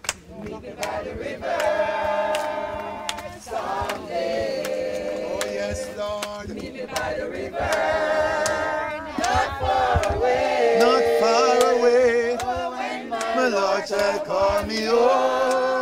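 A group of voices singing a gospel hymn together in sustained phrases, with short breaks between lines. Faint scattered clicks sound under the singing.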